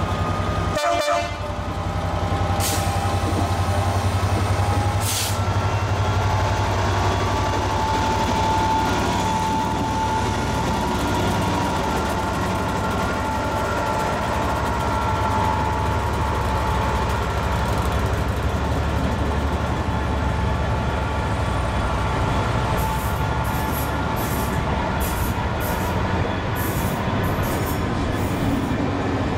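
Diesel train running past with a steady low engine drone. A long, high steady tone sounds for several seconds partway through. Near the end comes a quick run of sharp clicks from the wheels passing over rail joints.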